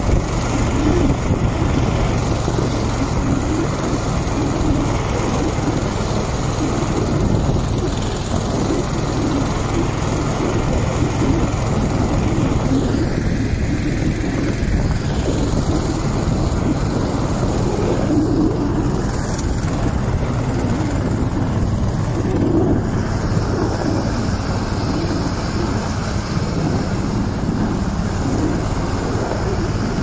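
Engine of a motosobaka, a small tracked motor tow, running steadily under load as it pulls a sled through snow.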